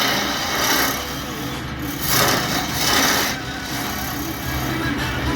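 Wood lathe running while wood is worked on it: a rasping cutting or sanding noise over a steady motor hum. The rasp swells and eases about once a second for the first few seconds, then holds steadier.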